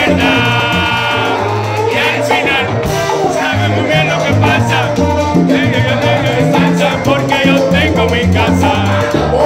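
Live salsa band playing: a lead singer sings over congas, timbales and a steady bass line.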